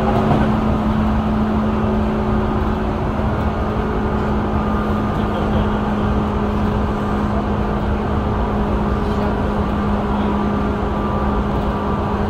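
Tobu 9000 series commuter train running at steady speed, heard from inside a passenger car: loud traction motor hum and whine that hold one pitch, over the rumble of the wheels on the rails.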